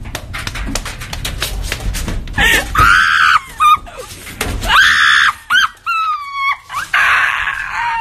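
High-pitched screams, several in a row, some sliding down in pitch, following a low rumble and a quick patter of knocks in the first couple of seconds.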